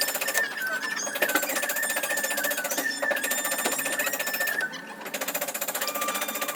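A power tool hammering rapidly and evenly, many blows a second, with a wavering high tone over it.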